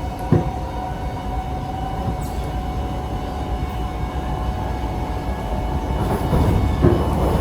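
Inside a Kawasaki-CSR Qingdao Sifang C151A metro car in motion: steady running rumble under a constant whine from the car's faulty air-conditioning, which sounds like an airplane. A single knock comes near the start, and the running noise grows louder near the end.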